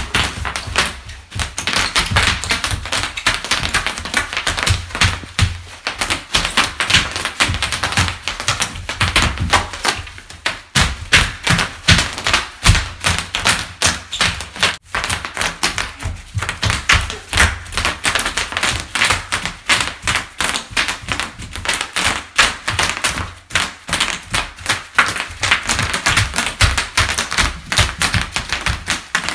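Bubble wrap popping under children's stomping feet on a hardwood floor: a dense, irregular run of sharp pops, several at a time, with dull thuds of feet landing on the wood.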